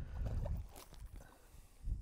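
Wind buffeting the microphone: low rumbling gusts, one at the start and another near the end.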